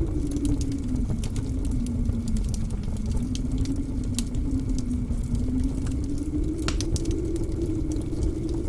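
Blizzard wind howling over a steady low rumble, its pitch sinking and then slowly rising again. Sharp crackles and pops of a wood fire in a fireplace come through it, one louder pop about two-thirds of the way in.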